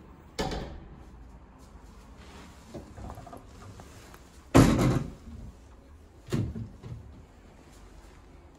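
Built-in shoe-cabinet doors being opened and shut by hand: three sharp knocks, the loudest about halfway through, with a few faint clicks of hinges and catches between.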